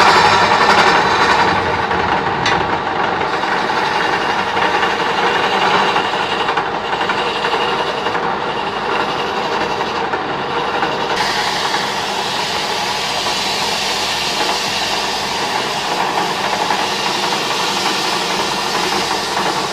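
Small electric wood lathe running while a hand chisel cuts a spinning wooden handle blank: a steady scraping rasp over the motor's hum. About eleven seconds in, the cut turns brighter and hissier.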